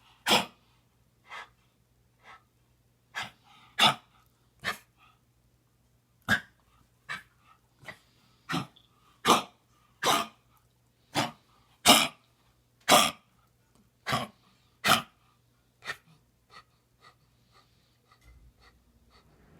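A dog coughing over and over in a long fit, about one short, harsh cough a second, loudest in the middle and dwindling to small coughs near the end. It is the persistent cough of a dog with heartworm disease.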